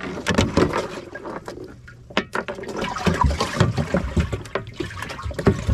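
Water splashing and sloshing as a channel catfish is put into a boat's live well, with irregular knocks and clunks from the lid and boat being handled.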